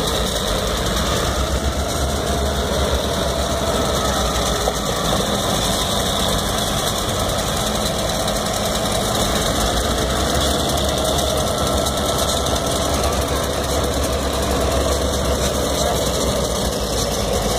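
Great Lakes Central diesel locomotives passing, their engines running with a steady, even rumble.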